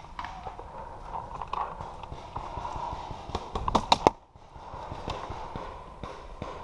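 Scattered sharp clicks and knocks from paintball play at a wooden pallet bunker, with a quick burst of loud cracks about three and a half seconds in.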